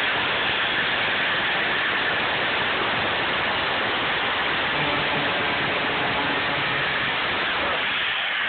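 Angle grinder cutting through a steel padlock, a steady grinding noise that eases slightly near the end.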